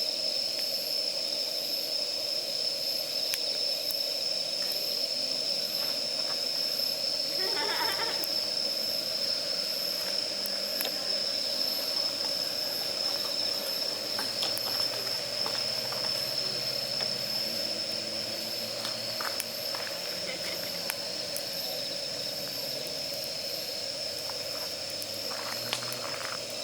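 Damp firewood burning in a campfire: a steady hiss with scattered sharp crackles and pops.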